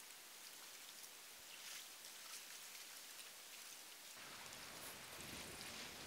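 Very faint water sounds, soft dripping and lapping, barely above silence.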